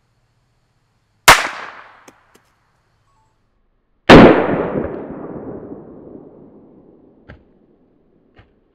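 Two sharp reports of a North American Arms mini revolver firing .22 Short: one crack about a second in that dies away quickly, and a second crack about three seconds later with a long, lingering decay, the same single shot heard again as the shot on the soap is replayed. Two faint knocks follow near the end.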